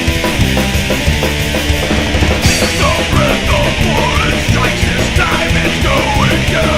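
Loud background rock music, heavy and distorted, with a high lead line of bending notes coming in about two and a half seconds in.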